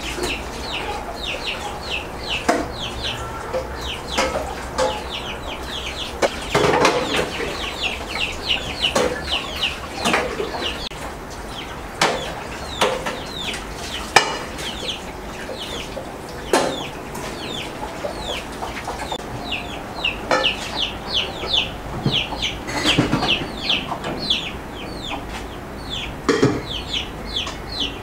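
Metal pots and pans knocking and clanking now and then as they are washed at a sink, over continual rapid, high chirping of birds.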